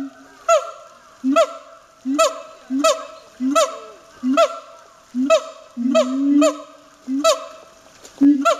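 Siamang barking loudly and rhythmically, about one call every 0.7 seconds, each sharp bark laid over a low boom; about six seconds in, one boom is drawn out longer and rises in pitch.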